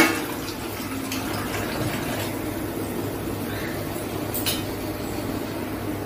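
Onion-tomato masala and freshly added coconut paste cooking in a steel kadai on a gas stove: a steady low bubbling hiss, with a short sharp clink about four and a half seconds in.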